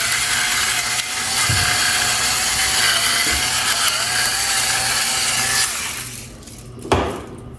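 Pepper grinder cracking black pepper, a steady grinding noise that stops about six seconds in, followed by a single knock.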